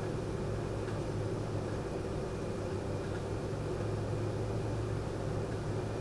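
Air-conditioner fan running with a steady low hum, and a faint, steady high trill of insects above it.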